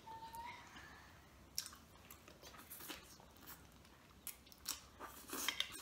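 Faint chewing and mouth sounds of people eating creamy shrimp Alfredo pasta, with scattered small clicks through the second half.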